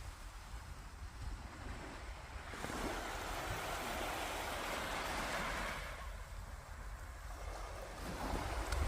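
Sea waves washing onto a beach: one swell of surf builds about two and a half seconds in and dies away after about five seconds, and another rises near the end, over a low wind rumble on the microphone.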